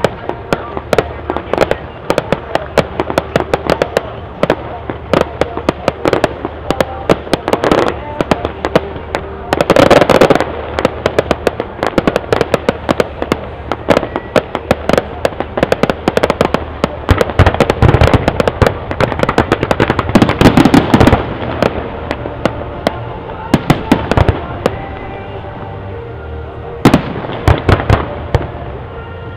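Fireworks display: a rapid, continuous string of bangs and crackles from bursting shells, with heavier volleys about ten seconds in, around eighteen to twenty-one seconds, and near the end.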